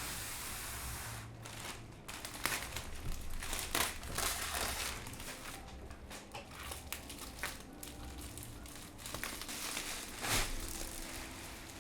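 Packaging crinkling and rustling as it is handled and unwrapped, with irregular sharp crackles and a few louder crinkles.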